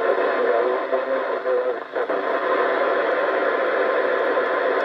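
CB radio speaker playing a weak long-distance station: a faint, garbled voice buried in heavy static and hiss.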